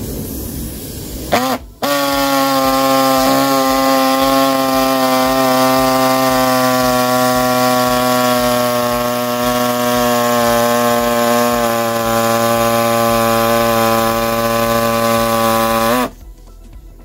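Pneumatic air saw cutting through a car's sheet-steel wheel arch. It starts briefly, stops, then runs at a steady pitch for about fourteen seconds before cutting off suddenly near the end.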